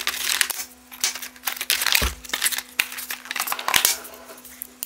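Rustling and crinkling of packaging as a new angle grinder is pulled out of its cardboard box, with scattered clicks and a thump about two seconds in as the tool is handled. It goes quieter near the end.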